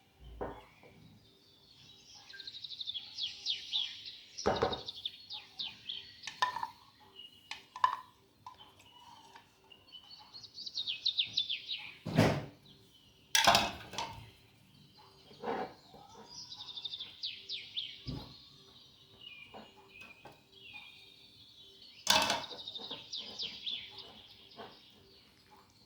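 Small birds chirping in quick, high, repeated trills that come in several phrases, with a few sharp clinks in between.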